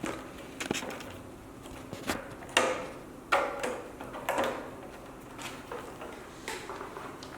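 Irregular sharp clicks and light knocks, about nine of them, several trailing into a brief scrape: handling noise from work on an LED display module during testing.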